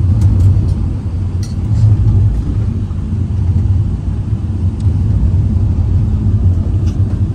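Steady low rumble of a moving van, engine and road noise heard from inside the cabin.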